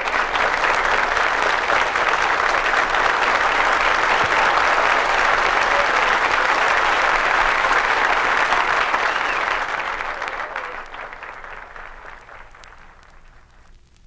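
Audience applauding at the end of a live gospel song, dying away over the last few seconds.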